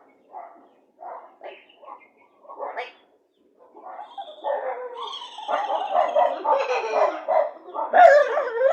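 A person imitating a dog: a few short barks, then from about halfway a longer, denser run of barking and whining.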